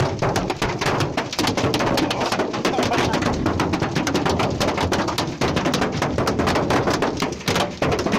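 Hailstones pelting a hard surface: a dense, irregular clatter of sharp impacts that goes on without a break.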